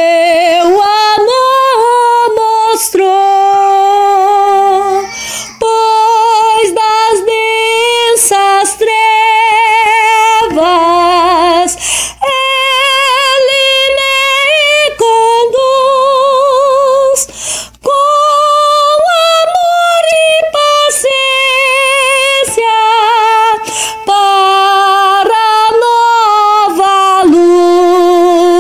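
A solo soprano voice singing a hymn melody with wide vibrato, in held phrases separated by short breaks.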